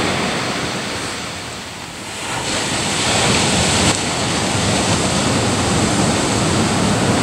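Ocean surf: waves breaking and washing up the beach in a steady rush, swelling louder about two and a half seconds in and staying up.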